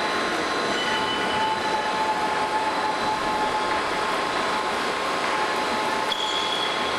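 Plate rolling machine running, its rolls turning and bending a large steel plate: a steady mechanical running noise with a whine. Brief high squeals come about a second in and again near the end.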